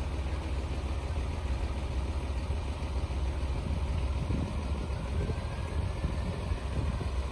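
Truck-mounted crane's diesel engine running steadily at idle, a low even rumble, as it powers the lift lowering a narrowboat into the water.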